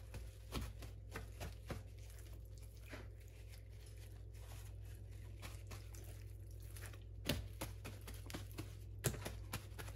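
Paper towel rustling and crinkling as hands pat a raw whole chicken dry, with soft squishing of the wet skin. Scattered short rustles, busier near the start and again around seven and nine seconds in.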